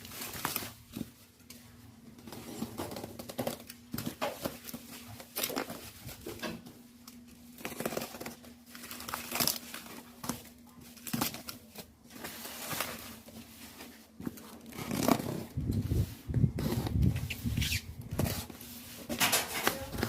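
Close-up handling sounds: scattered taps, clicks and rustles of things being picked up and moved, thickest near the end, over a faint steady hum.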